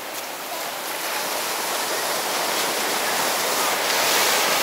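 Ocean surf breaking and washing up the sand, a steady rush of water that swells louder toward the end.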